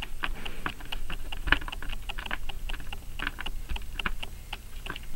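Small screwdriver turning a screw into the plastic back case of an HP-35 calculator: a steady run of small, irregular clicks and light scrapes, several a second.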